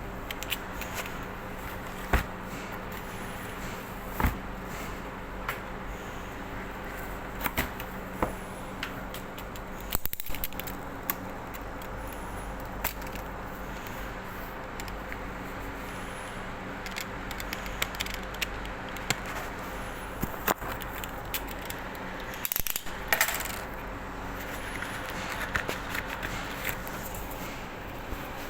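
Hands handling small hard objects: irregular sharp clicks and light knocks, bunched in two flurries, about ten seconds in and again near the end, over a steady low hum.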